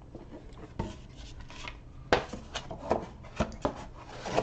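Cardboard board-game map sheets and their box being handled: a string of sharp knocks and rubbing slides as the sheets are shifted and set down, the loudest knock about two seconds in.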